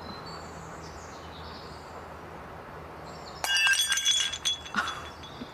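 A white ceramic mug smashing on the tarmac road about three and a half seconds in: a sudden crash followed by about a second of ringing clinks as the pieces scatter.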